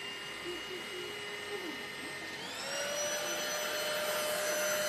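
Cordless stick vacuum motor (Airbot Supersonics Aura) running with a steady whine and airflow hiss. A little over two seconds in, it spins up to a higher pitch and gets somewhat louder.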